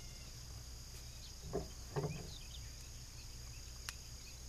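Steady high buzzing of an insect chorus, crickets, over a low steady hum. About a second and a half and two seconds in come two short low sounds that fall in pitch, and a sharp click sounds near the end.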